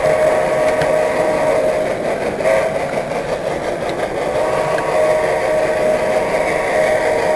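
Model train running along the layout track, heard from the train itself: a steady mechanical hum with a constant whine.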